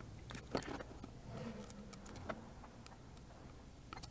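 Quiet room tone: a low steady hum with a few faint, light clicks scattered through it.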